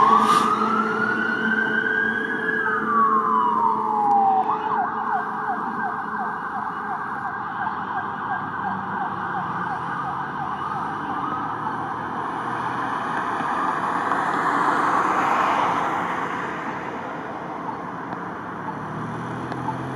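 Fire pumper's electronic siren: one slow wail that rises, holds and falls, then switches about four and a half seconds in to a fast yelp that grows fainter as the truck drives away.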